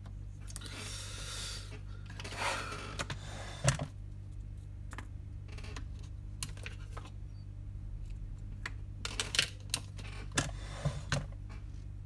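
Small clicks and taps from handling an iPhone 7 logic board and jumper wire on a work mat, over a steady low electrical hum. Two short rustling swishes come in the first few seconds, and a quick run of clicks comes late on.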